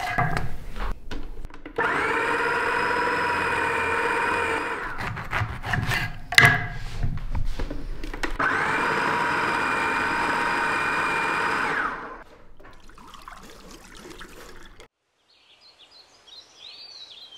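Kenwood electric citrus juicer motor running in two steady spells of about three seconds each, with a level whine, and knocks from the fruit and juicer between the spells. After about twelve seconds the motor is off and it goes much quieter.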